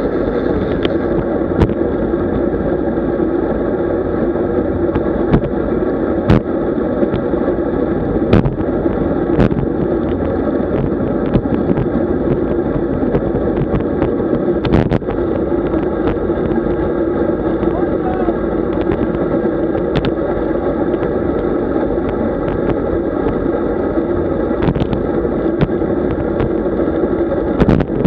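Steady wind and road noise on the microphone of a camera riding along on a road bicycle, with frequent sharp knocks and clicks from jolts.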